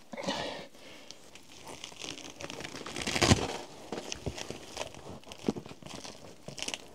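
Rustling, crinkling handling noises with scattered clicks and one louder knock about three seconds in.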